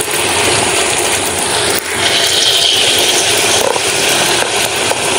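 Battered banana fritters deep-frying in a wok of hot oil: a steady sizzle that turns brighter and harsher about two seconds in.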